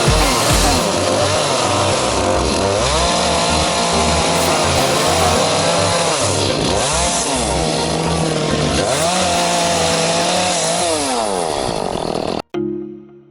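Chainsaw running and revving up and down again and again as it cuts, over background music; it cuts off abruptly near the end, leaving only the music.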